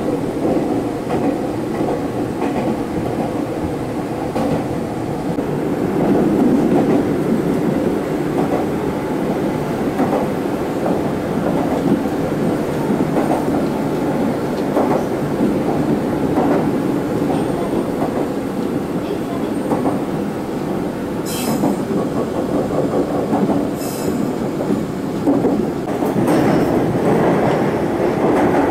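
Meitetsu electric commuter train running at speed: a steady rumble of wheels on rail with scattered clicks, and two sharper clicks about three quarters of the way through.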